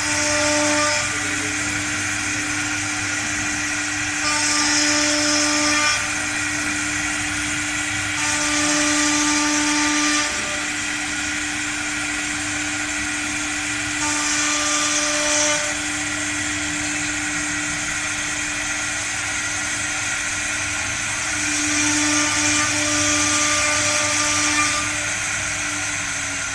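Three-spindle wood CNC router running, its spindle giving a steady whine while the bit routes grooves in a wooden board. Five times the cutting noise grows louder, each time for one to three seconds.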